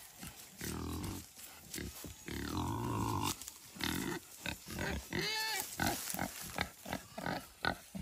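Pigs and goats calling: a few drawn-out, wavering calls among many short grunts.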